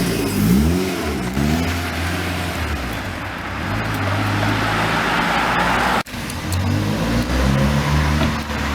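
Car engine running, with one quick rev up and back down about a second in, then running steadily. The sound cuts out sharply for a moment about six seconds in, and the engine is heard again after it.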